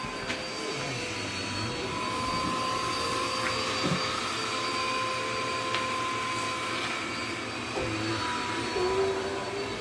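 Dirt Devil vacuum cleaner running steadily, its motor whining at a constant pitch over the rush of air.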